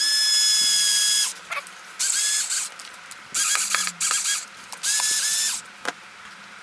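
Battery-powered screwdriver driving the screws of a mounting plate, in four short whining runs, the first about a second long, with light clicks between them.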